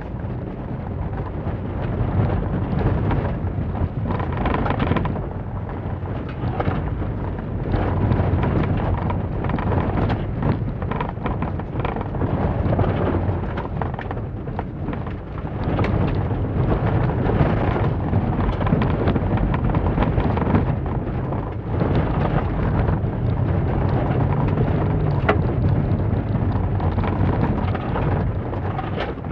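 2006 Holden Barina's four-cylinder engine revving up and down as it is driven hard through a khanacross course, heard from inside the cabin. Loose dirt and stones rumble and rattle under the car throughout.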